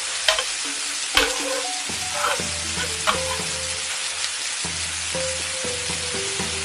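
Scrambled eggs sizzling in oil in a frying pan while a metal ladle pushes and scrapes them around, with a few sharp clinks of the ladle against the pan, the loudest about a second in.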